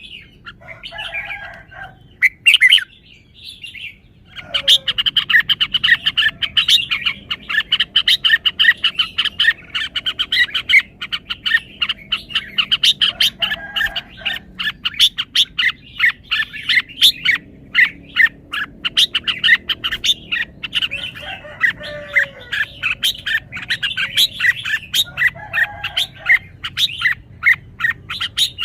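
Red-whiskered bulbul singing: a few short phrases, then, from about four seconds in, a long unbroken run of quick chirping notes.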